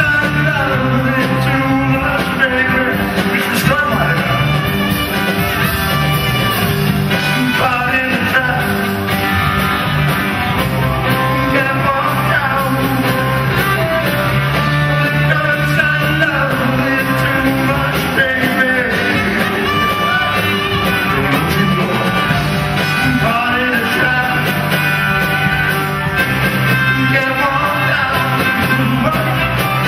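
Live rock and roll band playing, with a male lead singer over electric guitars, bass and drums.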